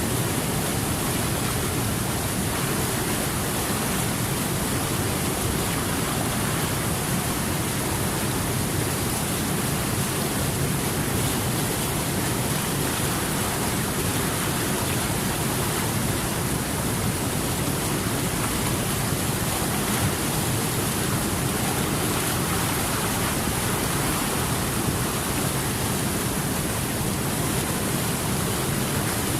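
Rushing water running steadily, an even hiss that neither rises nor falls.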